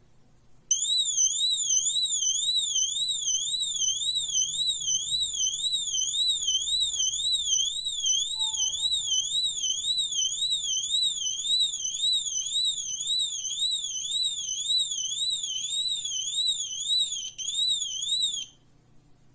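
Tuya water leak sensor's built-in 80 dB siren sounding, a high warbling alarm whose pitch sweeps rapidly up and down, set off by water reaching its sensing contacts. It starts just after the beginning and cuts off suddenly near the end.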